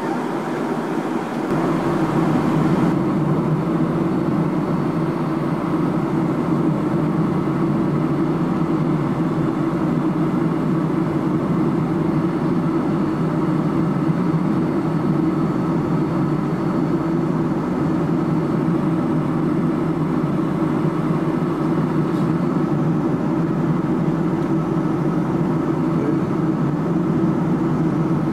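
Steady cabin noise of a McDonnell Douglas MD-11 airliner in cruise, heard inside the cabin at a window seat beside the wing-mounted turbofan engine: an even, low rushing drone of engine and airflow.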